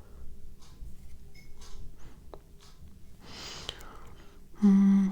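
A woman's voice in a pause: a faint breath about three seconds in, then a short steady hum ("mmm") near the end.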